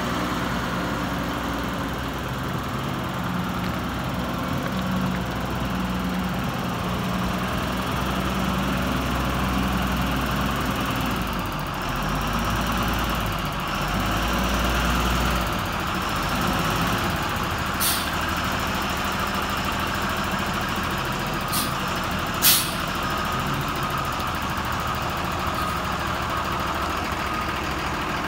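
Diesel engine of a Gradall G3WD wheeled excavator running steadily at idle. Three or four short sharp clicks come in the second half, the loudest about two-thirds of the way through.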